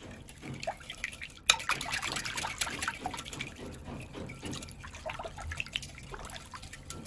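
Wire whisk beating a thin milk-and-water yeast mixture in a glass bowl: quick sloshing and splashing of the liquid with many small clicks of the wires against the glass, and one sharper click about a second and a half in.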